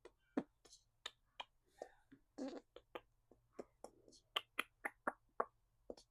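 A quick, irregular series of sharp clicks, roughly three a second, with a short low vocal sound about two and a half seconds in.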